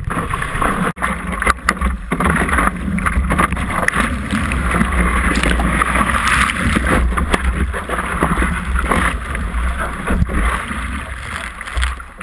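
Water splashing and rushing past a stand-up paddleboard as it is paddled through choppy water, with wind buffeting the microphone of the camera mounted on the board. A few sharp clicks stand out about one to two seconds in.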